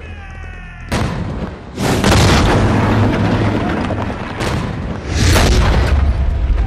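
Battle sound effects: a faint falling whistle, then a series of heavy explosions with rumbling tails, mixed with gunfire.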